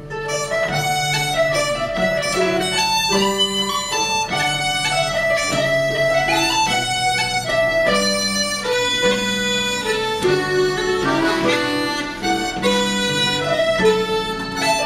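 Irish traditional group playing a lively tune on accordions and Celtic harps, the accordions' reedy melody running in quick notes over the plucked harps.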